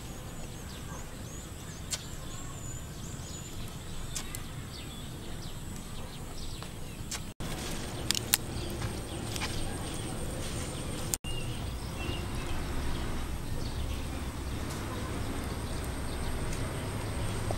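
Outdoor ambience: a low wind rumble on the microphone under a steady high-pitched drone, with a few faint clicks and chirps. The rumble gets louder about eleven seconds in.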